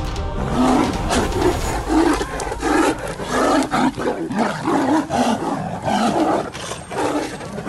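Two tigers fighting, roaring in a rapid series of short, harsh bursts.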